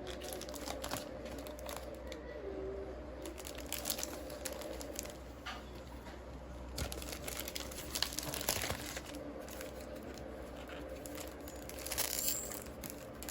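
Packaging crinkling and rustling in irregular handling noises as a photobook is unwrapped, with a few sharper crackles and some tearing.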